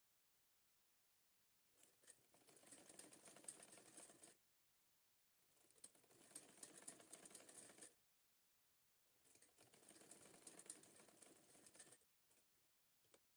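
Sewing machine stitching in three runs of about three seconds each, with short pauses between, a fast, even clatter of the needle going up and down. A couple of small clicks follow near the end.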